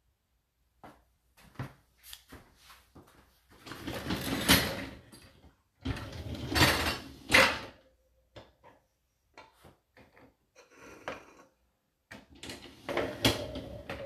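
Racks and cutlery tray of a Whirlpool WFO3P33DLXUK dishwasher sliding on their rails, with loaded dishes rattling. There are two longer rattling slides, about a third and about halfway in, then scattered clicks and knocks, and more clatter near the end.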